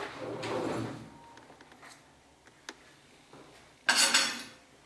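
Aluminium pot of frying oil handled on a gas-stove grate: a short metal clatter about four seconds in, after a quiet stretch with a single faint click.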